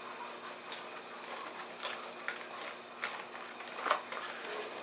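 A sheet of paper being folded in half and creased by hand: faint rustling with a few short, sharp swipes of fingers across the paper.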